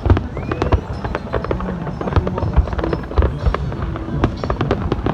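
Fireworks display going off in a rapid, continuous string of bangs and crackles, several a second, over music.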